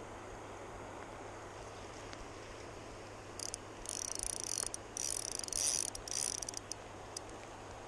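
Spinning reel's drag buzzing in several bursts from about three and a half to six and a half seconds in, as a hooked chinook salmon takes line against a light drag. Steady water noise of the river underneath.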